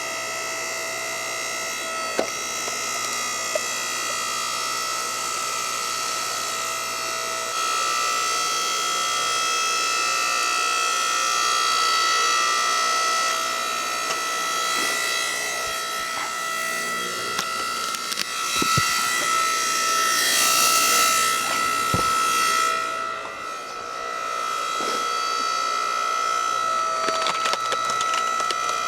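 Yardworks 6.5-ton electric log splitter running with a steady, loud high whine from its motor and hydraulic pump, which the owner is not sure is normal. Wood creaks and cracks, with a few sharp knocks, as a round is split about twenty seconds in.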